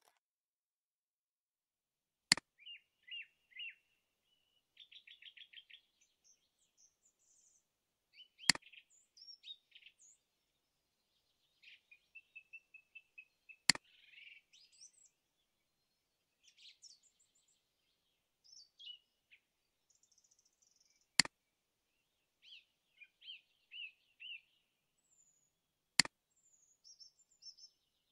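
Birds chirping and singing in short phrases and trills. Five sharp clicks, the loudest sounds, fall at irregular intervals of about five to seven seconds, like computer mouse clicks.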